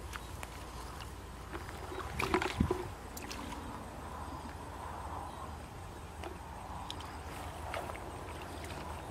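Hands sloshing and splashing in shallow muddy water, with a louder burst of splashing about two seconds in, over a steady low background noise.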